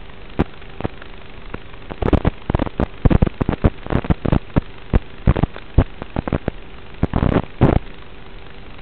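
Radio static from an analog FPV video link's audio channel: a steady hiss with a faint low hum, broken from about two seconds in by dense, irregular crackling pops.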